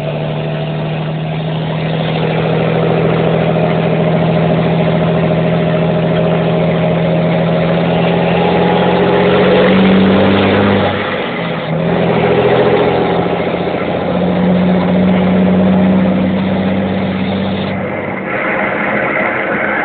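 Volkswagen Constellation truck's diesel engine heard through its exhaust, running steadily with its pitch rising twice, around ten seconds in and again around fifteen, and dropping briefly in between. A rushing noise joins near the end.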